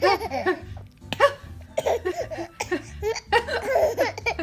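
High-pitched laughing broken by sudden hiccups, a sharp one about a second in.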